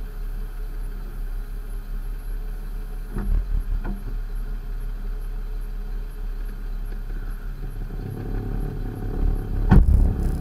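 Toyota Tacoma pickup's engine idling with a steady low rumble, with two light knocks about three seconds in. Near the end the rumble grows louder and there is a sharp, loud knock.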